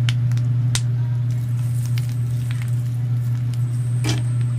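A steady low hum, one even tone with a fainter overtone, that cuts in and out abruptly, with a few light clicks over it.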